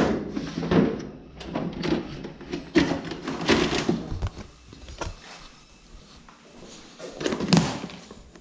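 A series of knocks and bumps from objects being handled. The loudest comes right at the start and another strong one about seven and a half seconds in, with quieter clatter between.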